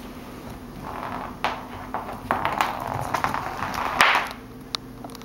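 Scuffling and light knocks on a hard floor as a cat chases a small ball, with the loudest knock about four seconds in.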